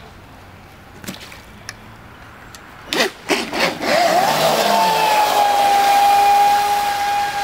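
Traxxas Spartan RC speed boat's brushless electric motor on a 4S LiPo: a few short throttle bursts about three seconds in, then a high whine that rises in pitch and holds steady as the boat runs flat out, over a hiss of spray.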